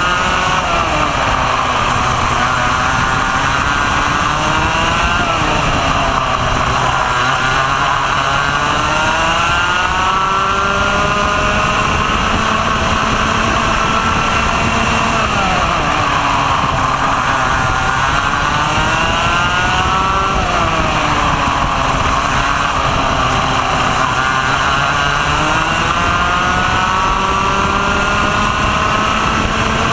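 Two-stroke racing kart engine at racing speed, its pitch climbing steadily along the straights and dropping sharply as the driver lifts for corners, several times over.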